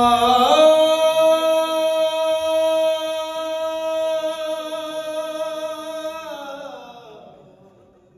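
A singer holding one long sung note through the hall's sound system: it steps up in pitch about half a second in, stays steady for some six seconds, then slides down and fades away.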